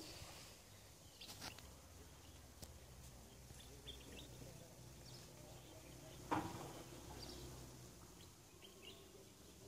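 Faint outdoor ambience: a low rumble with scattered distant bird chirps. A single sharp knock about two-thirds of the way through is the loudest sound.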